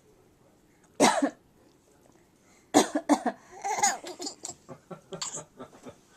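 A single sharp cough about a second in, then from near three seconds a run of coughs and laughter in short bursts that fade toward the end.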